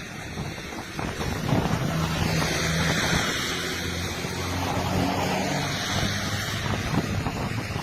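Hailstorm pelting down: a dense rattle of hailstones in a noisy roar that swells about a second in and stays strong.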